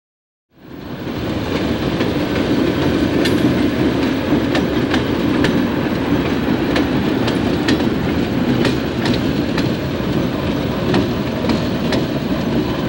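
Trona Railway Baldwin AS616 diesel locomotives rolling past close by: a steady engine and rolling rumble with sharp, irregular clicks of wheels over the rail joints. The sound fades in about half a second in.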